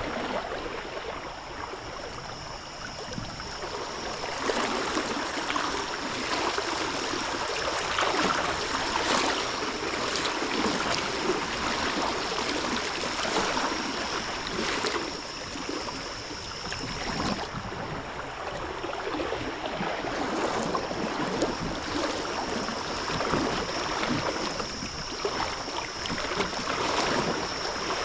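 Running water of a river, a steady rushing that swells and fades a little, with a continuous high trill of crickets.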